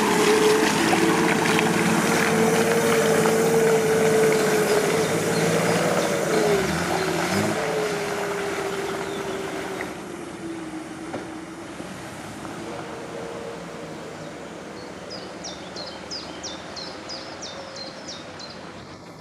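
Nissan Patrol off-roader's engine running as it drives through deep mud close by, its note wavering about six seconds in. It then pulls away up the track and fades to a quieter hum.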